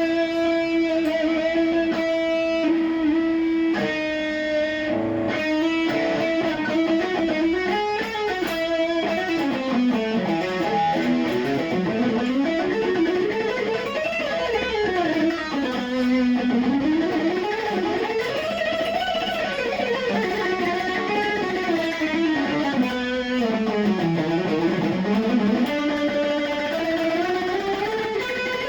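Cort X700 Duality II electric guitar played straight into an amplifier without effect pedals: a fast lead melody whose runs sweep up and down in pitch again and again.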